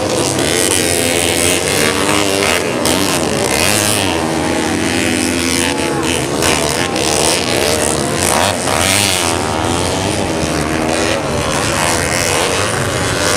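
Several modified 130 cc underbone racing motorcycles revving hard on a dirt track, their engine pitches rising and falling and overlapping.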